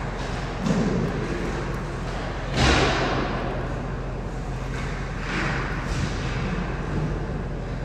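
Ice hockey game play: a few sudden thuds, the loudest about two and a half seconds in, over a steady rink hum.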